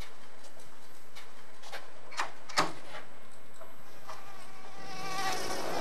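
Steady whining buzz of a swarm of mosquitoes, with a few light clicks about two seconds in; the sound grows louder near the end.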